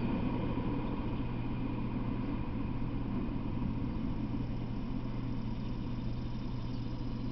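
Rumble of a freight train that has just gone by, dying away over the first couple of seconds, leaving a steady low hum and a faint even rumble.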